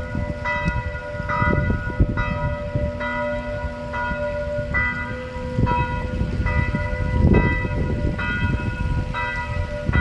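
Church bells ringing, several bells of different pitches struck one after another, a little under one strike a second, each note ringing on, over a low rumble.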